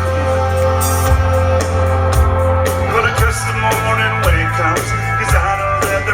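Live country band playing loud, with a heavy bass line, a steady drum beat and electric guitar; a singing voice comes in about halfway through.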